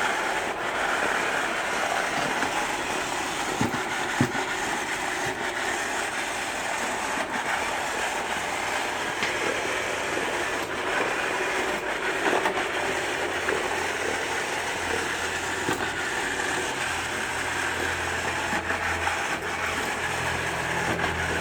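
Robot vacuum cleaner running steadily, its motor and two spinning side brushes giving a continuous whirring hiss, with a few light knocks.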